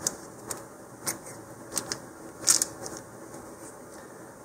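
A small plastic parts bag rustling and crinkling in short, irregular handfuls as a lump of modeling clay is pulled out of it, the loudest rustle about two and a half seconds in.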